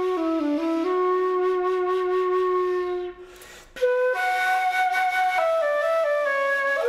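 Background music: a solo flute playing slow, long-held notes that step down in pitch, breaking off briefly a little past halfway and coming back in on a higher note.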